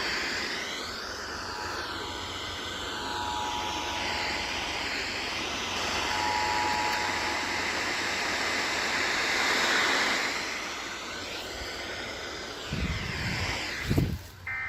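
Emergency Alert System two-tone attention signal, faint and breaking in and out under heavy AM radio static and hiss. A couple of low thumps come near the end.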